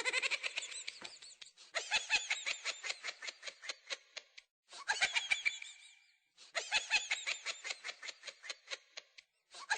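Roly laughing dog toy playing its chuckling laugh through its small speaker: a rapid pulsing laugh in repeated bursts, each one fading away before a short pause and the next.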